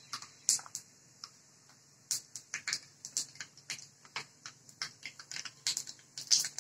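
Mustard and cumin seeds crackling and popping in hot oil at the start of a tempering (phodni): a few scattered pops at first, growing quicker and denser toward the end as the oil gets hot enough for the seeds to splutter.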